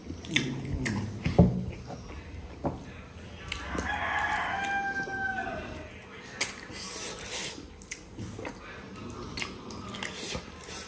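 A rooster crows once, a single call of about two seconds near the middle, over close eating sounds: chewing, lip-smacking and scattered short clicks.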